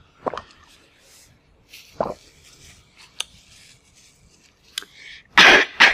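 Close-miked chewing of a mouthful of noodles and curry, with a few sharp wet clicks and smacks spaced about a second apart. Near the end come two loud, short bursts of noise.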